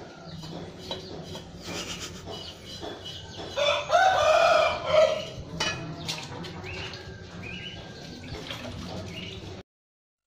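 A rooster crows once, a long call about four seconds in, with shorter clucking calls and light clicks of kitchen utensils around it. The sound cuts off suddenly near the end.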